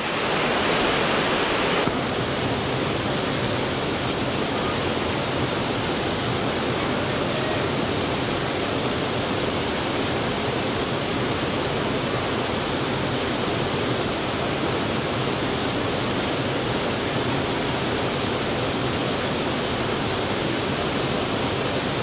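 Waterfall rushing: a steady, unbroken roar of falling water, a little louder for the first two seconds.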